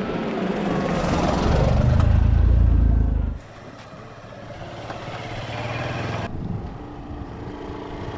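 Vehicles driving past close by over dirt, one after another: a Suzuki hatchback's engine loudest for the first three seconds or so, then a motorcycle and then a scooter riding by, with abrupt changes at each switch.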